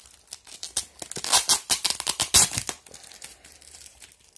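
Clear plastic wrapping crinkling and tearing as it is pulled open by hand, in several rustling bursts over the first three seconds, then quieter handling of the package.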